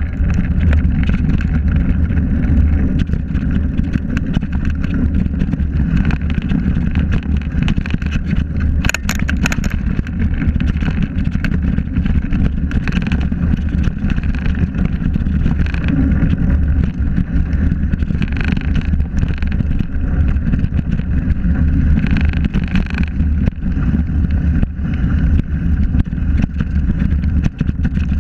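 A mountain bike running fast downhill on a rocky dirt trail: tyre rumble and frame rattle under heavy wind buffeting on the microphone, with a brief clatter about nine seconds in.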